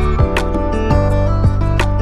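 Instrumental background music with plucked notes over sustained tones.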